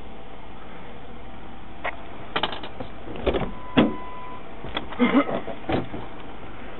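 Handling knocks and clatters against a car's body and door, about half a dozen sharp ones over a few seconds, with a brief steady beep partway through.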